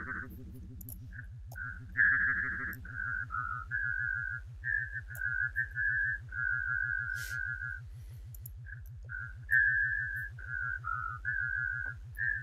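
Looped audio from Sooperlooper played through an FM-modulation patch: a string of short, warbling, whistle-like notes that hover around one pitch with small ups and downs, over a fast, even, low pulsing buzz. Two of the notes, about two seconds in and near the end, are louder.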